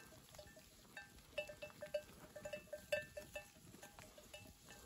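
Metal bells on a grazing flock of sheep clinking irregularly, many small overlapping strikes, each ringing briefly.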